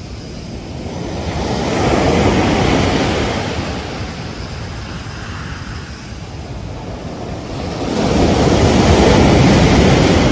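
Ocean surf on a beach: a wave breaks and washes in about two seconds in, then a louder one near the end, with a steady rush of surf between.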